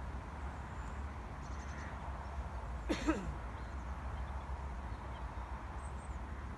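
A single short, harsh bird call, falling in pitch, about three seconds in, over a steady low rumble.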